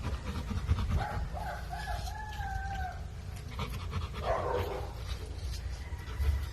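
A rooster crows once: a few short notes, then one long held note. About four seconds in comes a short, rough sound.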